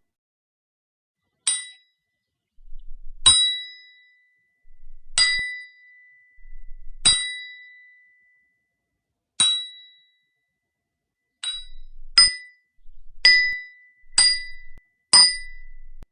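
Steel hammer striking a steel chisel, about ten sharp metallic blows, each with a short ringing tone. The blows come every second or two at first and more quickly in the last few seconds.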